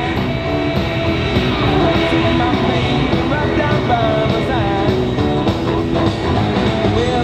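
Rock song with a singing voice and guitar.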